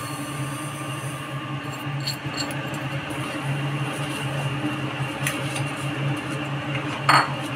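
Tomato-and-vegetable gravy simmering in a kadhai with a steady hiss over a low steady hum, while roasted vermicelli is tipped in and stirred with a wooden spatula: a few light scrapes and clicks, and a louder knock of the spatula against the pan about seven seconds in.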